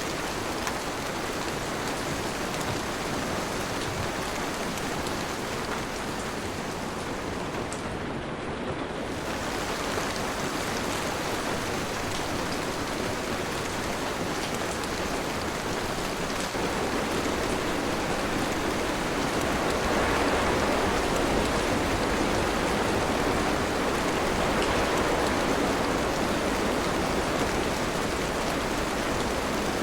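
Steady rain falling, growing heavier about twenty seconds in.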